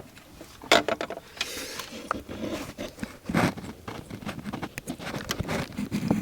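Irregular clicks, knocks and scraping of hands handling parts and tools.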